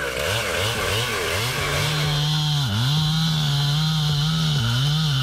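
Echo CS-7310 two-stroke chainsaw with a 24-inch bar cutting through a thick red oak log. For the first two seconds the engine pitch swings up and down rapidly, then it holds high and steady at full throttle, dipping briefly now and then as the chain bites into the wood.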